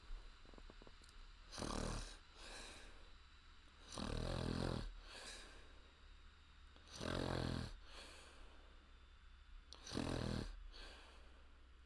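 A woman's loud open-mouthed throat snoring: four snores about three seconds apart, with softer breaths between them.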